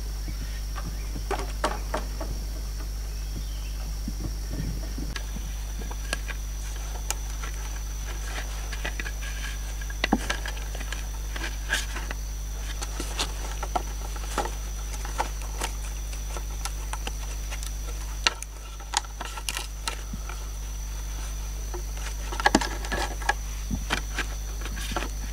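Scattered light knocks and clicks of green bamboo being handled and fitted together, over a steady high-pitched tone and a low hum.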